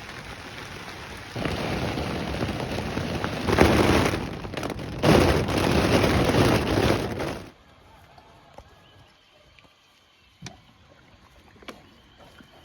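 Heavy rain in a night storm, a loud rushing downpour that swells twice and then cuts off suddenly, leaving a few faint clicks.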